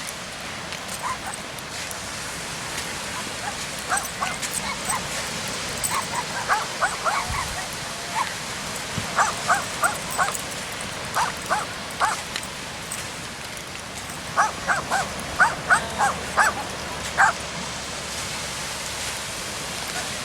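A young dog yipping in quick runs of short, high-pitched barks, in three bouts, over a steady background rush.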